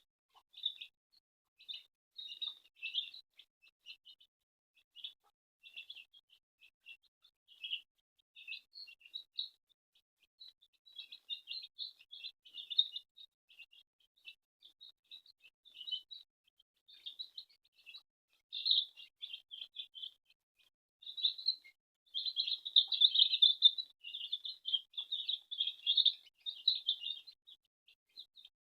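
Baby chicks peeping: many short, high peeps, scattered at first and crowding into almost continuous peeping about two-thirds of the way through.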